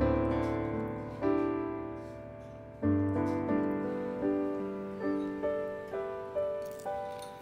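Soft solo piano background music. Struck chords ring and fade, then a melody of single notes comes in about two a second from about three seconds in.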